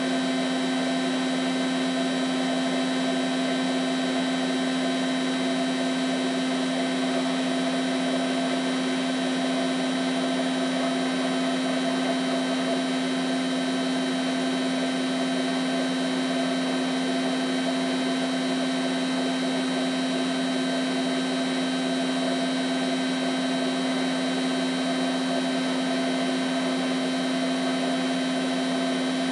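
Hotpoint 1000 De Luxe WM23W Aquarius Ultima washing machine on its final spin at 1000 rpm: the motor and drum run at a steady speed, giving an even whine with a low hum beneath it that holds the same pitch throughout.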